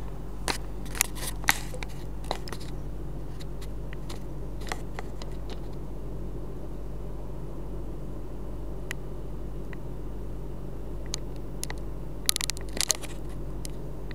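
Steady low electrical hum under scattered light clicks and crackles of handling, a handful in the first couple of seconds and a quick cluster near the end.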